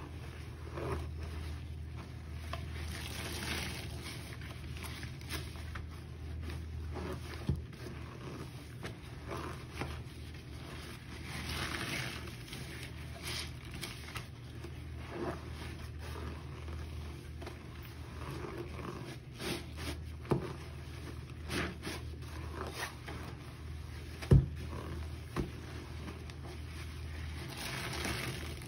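A soaked sponge squeezed and rubbed over and over in foamy soapy bleach water by rubber-gloved hands, wet squelching and sloshing that swells with each squeeze, with a sharp tap about three quarters of the way through. A soaked cloth is lifted and wrung near the end.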